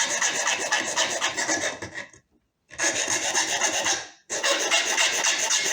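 A tool scraping and abrading a metal sewing-machine needle plate to enlarge the hole for the feed dog, in three stretches with two short pauses.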